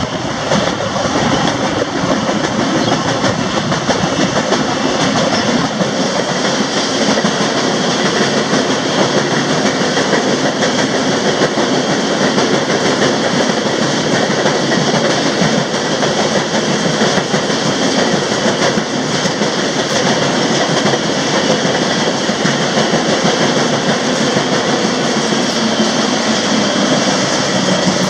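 Freight car rolling along the rails, heard from aboard the moving train: a loud, steady rolling noise of wheels on track mixed with rushing air, with scattered faint clicks.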